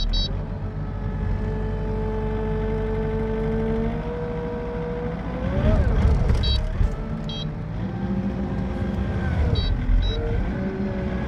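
Diesel wheel loader engine running and working, its pitch rising and falling as it is revved, with a brief rev-up about six seconds in. Short high electronic beeps sound a few times over the engine.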